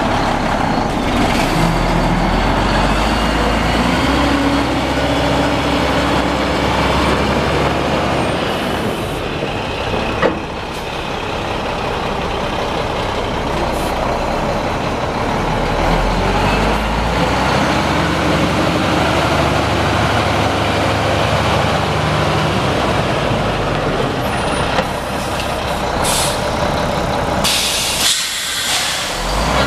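Mack E7 12-litre inline-six turbo diesel of a semi tractor running steadily, with a sharp click about ten seconds in and bursts of hiss near the end.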